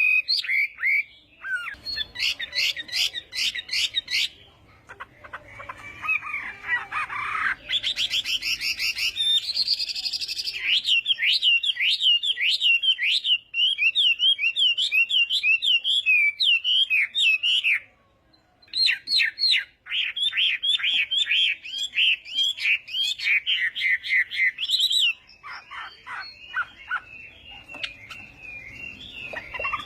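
Chinese hwamei singing a long, varied song of rapid repeated notes and fast trills, with one short pause a little past halfway and softer notes near the end.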